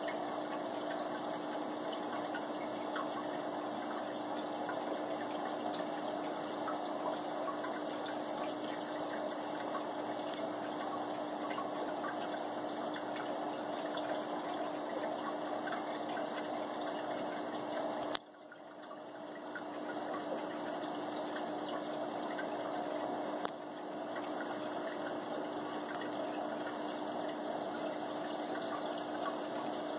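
Aquarium water circulation running steadily: continuous splashing and bubbling water with a steady low hum. About two-thirds of the way through there is a click, the sound drops away suddenly and then builds back over a couple of seconds, and a smaller click follows.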